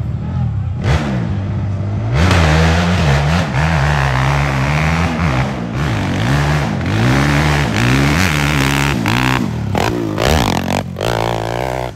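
450cc dirt bike engine revving hard on a hillclimb run, its pitch rising and falling over and over as the throttle is opened and eased. It cuts off abruptly at the end.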